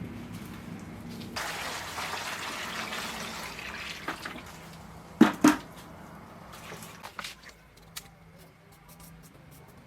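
Water running for about two and a half seconds, starting about a second and a half in. Two loud knocks follow a little after five seconds, then a few lighter clicks.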